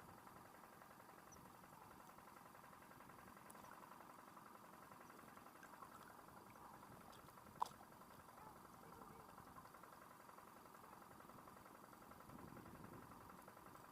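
Near silence: faint steady outdoor background with a thin hum, and one sharp click about seven and a half seconds in.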